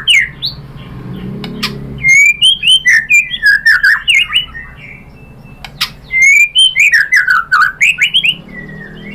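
White-rumped shama (murai batu) singing in two loud bursts of rapid, varied whistled phrases, the first about two seconds in and the second about six seconds in, with a quieter gap between.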